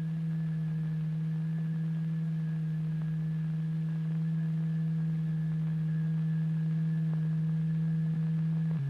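Steady low electronic tone, the vibration frequency driving a layer of turpentine into a lattice pattern in a cymatics experiment. It holds one pitch and steps down to a lower pitch right at the end.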